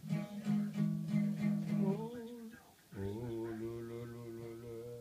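Ukulele being strummed, one chord ringing out and a second struck about three seconds in, with a man's voice humming or singing along without clear words.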